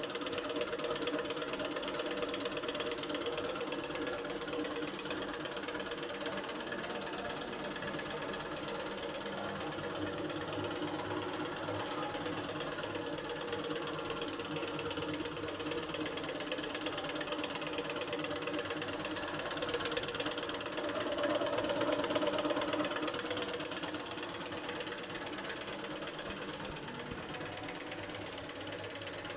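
Steady, rapid mechanical clicking and rattling of machinery running continuously, a little louder about two-thirds of the way through.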